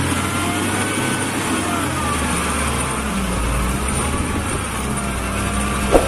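Dump truck's diesel engine running steadily as the hydraulic hoist tips the sand-laden bed to unload it. A short knock comes right at the end.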